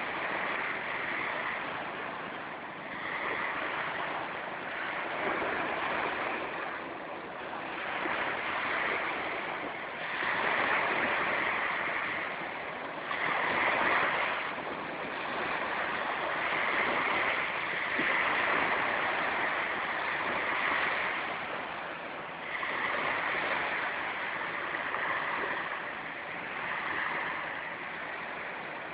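Sea waves washing and breaking, the rushing noise surging and easing every few seconds.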